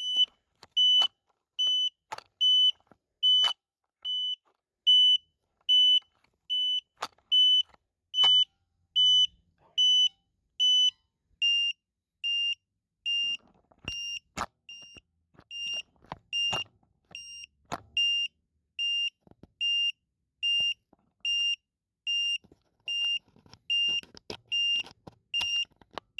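Fimi X8 Mini remote controller beeping during a remote control calibration: a steady series of short, high electronic beeps, a little over one a second. About halfway through the beeps drop slightly in pitch and come a little faster, marking a change of calibration stage.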